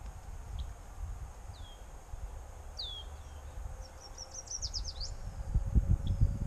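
Wind rumbling on the microphone, gusting harder near the end. Over it a songbird calls: two short falling chirps, then a quick run of descending notes.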